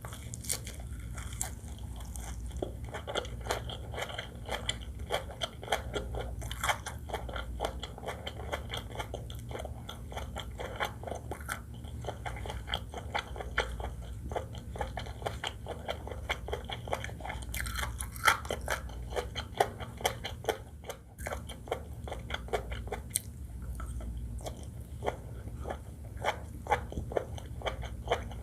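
Close-miked chewing and biting of seafood fried rice with shrimp, crab and squid: a dense, continuous run of crunchy, wet mouth clicks.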